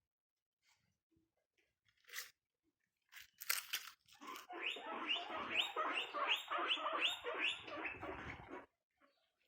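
Guinea pigs crunching food: a few separate crunches, then a steady run of rhythmic crunches, about three a second, that stops near the end.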